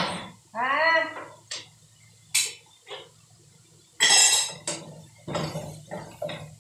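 Kitchen utensils knocking and clinking against a cooking pot on the stove in a string of separate short strikes, with a louder scraping clatter about four seconds in.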